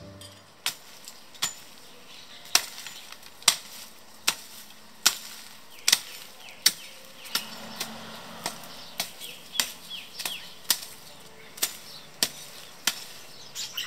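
Hoe blade chopping into dry garden soil: about twenty sharp strikes, coming faster in the second half.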